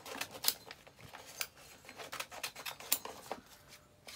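A gift-wrapped package being opened by hand: its wrapping crinkling and tearing in a quick, irregular run of sharp crackles.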